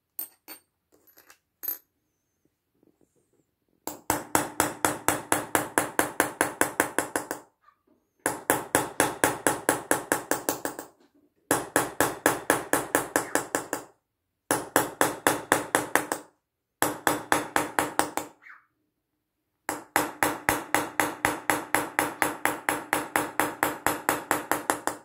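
Small hammer tapping a steel engraving chisel cut by cut into an engraved metal tray, in quick even runs of about six sharp metallic taps a second with brief pauses between runs.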